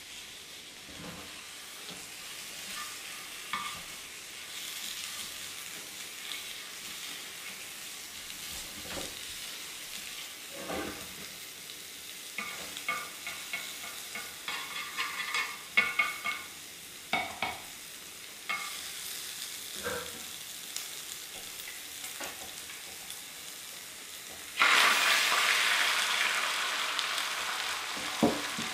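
Rolled Japanese omelette (dashimaki tamago) frying in a rectangular tamagoyaki pan: a low sizzle, with wooden chopsticks clicking and scraping against the metal pan as the egg is rolled. About 25 seconds in, a sudden loud sizzle as fresh egg mixture hits the hot pan, easing off slowly.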